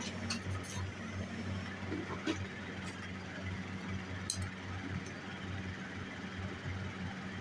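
A few light clinks of small sterling silver pieces being handled and set down on a jeweller's bench, scattered over several seconds, over a steady low hum.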